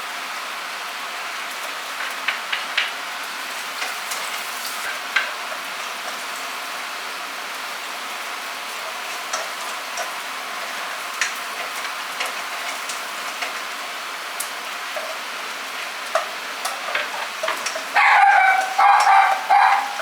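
Food sizzling and frying in a pan, a steady hiss with scattered sharp pops and clicks. A voice comes in near the end.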